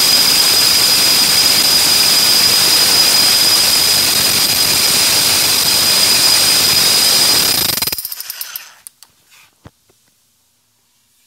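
Bosch RH540M rotary hammer's brushed motor running at full speed with a steady high whine, its brush housing open; it is switched off about seven and a half seconds in and winds down within a second, followed by a few light clicks.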